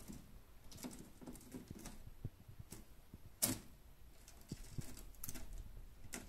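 Freckled monitor (Varanus tristis orientalis) biting and chewing food: irregular small clicks and crunches, with one louder click about three and a half seconds in.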